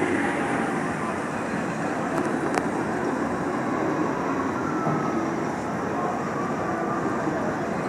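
Steady rushing outdoor noise with a faint click about two and a half seconds in.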